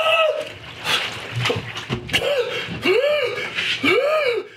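Liquid splashing over a man in a bathtub for the first couple of seconds. Then his short moaning gasps, each rising and falling in pitch, about one a second, in pain from the burn of extremely hot chili-coated peanuts.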